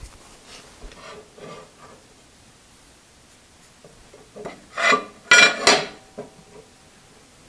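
Scraping and squeaking on a steel plate laid on the bed of a 4x6 horizontal metal-cutting bandsaw. A few faint scrapes come first, then a louder, squeaky scrape lasting about a second and a half a little past the middle.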